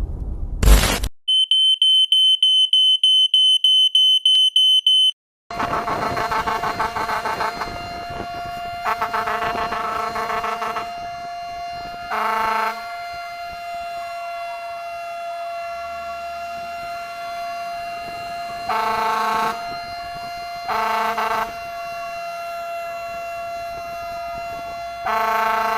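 A high-pitched electronic alarm beeping rapidly for about four seconds, then a short gap. After that a fire truck's siren holds a steady tone, and its air horn blasts six times, some long and some short.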